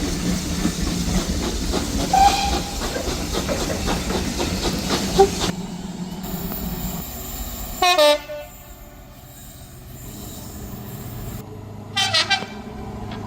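A train passing close by with wheels clattering over the rail joints, then a train horn sounding two short blasts about four seconds apart.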